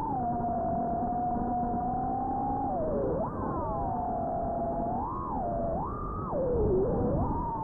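FPV drone's motors whining, the pitch gliding up and down with the throttle: held steady at first, a sharp rise and drop a little after three seconds in, then two quick throttle blips around five and six seconds in, over a rushing noise.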